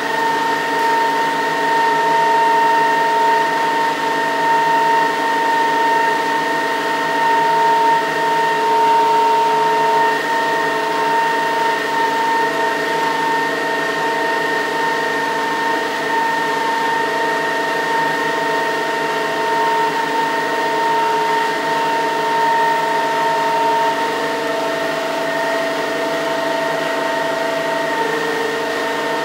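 Single-jet Pelton micro-hydro turbine and its direct-coupled permanent-magnet generator running steadily under load: an even rushing hiss with several steady whining tones.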